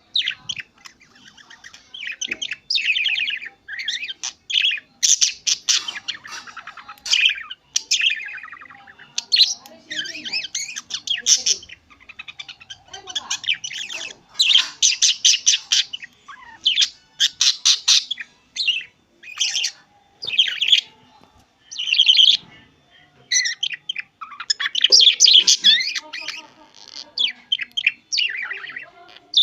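A single budgerigar chirping and chattering to itself: runs of quick, high chirps and trills, broken by short pauses.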